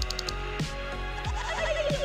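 Background music with a deep, falling kick drum about every two-thirds of a second. A wavering, warbling higher tone comes in over it a little past halfway.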